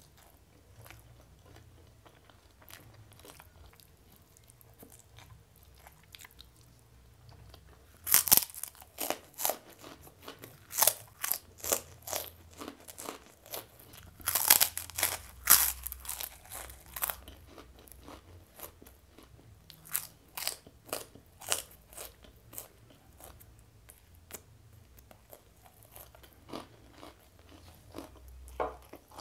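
Close-miked eating of a crisp cracker: soft mouth sounds at first, then a run of loud, sharp crunches with chewing from a little over a quarter of the way in, thinning out to a few softer crunches near the end.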